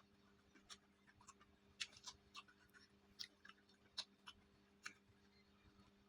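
Faint chewing with wet mouth clicks and lip smacks, irregular, about ten in all, over a low steady hum.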